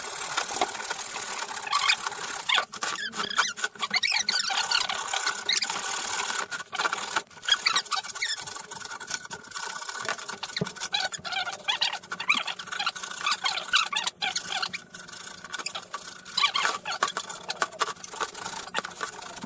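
Hand work on wood: irregular rubbing and scraping with many short squeaks and clicks.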